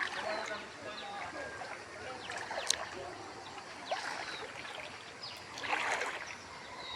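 Floodwater splashing and sloshing in uneven bursts, with a sharp click about two and a half seconds in.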